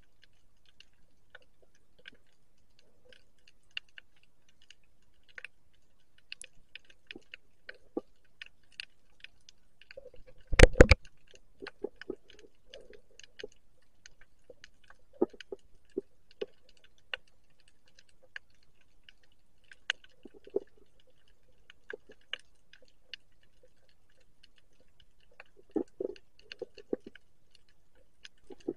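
Underwater ambience: irregular sharp clicks and pops, a few a second, with a short, loud burst of knocks about ten seconds in.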